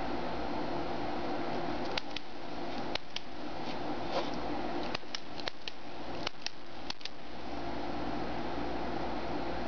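About ten sharp, irregular clicks from a stainless steel Parker Jotter ballpoint pen being handled, bunched in the middle of the stretch, over a steady background hum.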